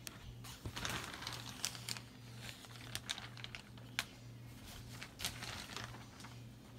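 Shower curtain rustling and crinkling as it is pushed aside, with scattered sharp crackles, over a low steady hum.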